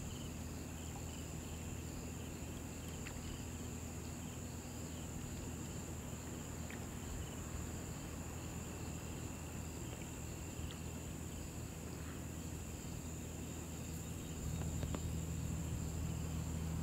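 A steady chorus of summer insects, a continuous high-pitched buzz, over a low steady rumble that grows louder about fourteen seconds in.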